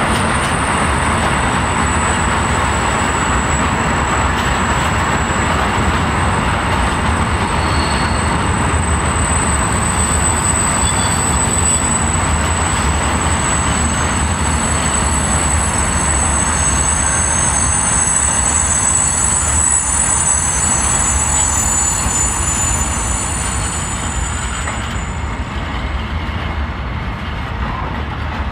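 Freight train of bogie hopper wagons rolling steadily past at close range: a continuous rumble of wheels on rails, with thin high squealing tones over it that fade out near the end as the noise eases slightly.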